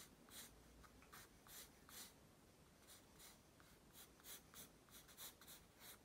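Faint pencil strokes scratching on paper: quick, repeated sketching strokes, about two or three a second.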